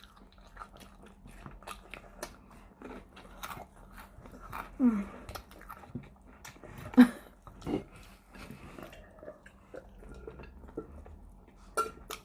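People chewing and biting into crispy fried chicken wings on the bone, with many small crunching clicks throughout.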